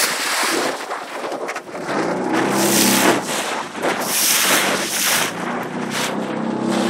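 Wind gusting on the microphone over the steady hum of a small boat motor, which grows louder near the end.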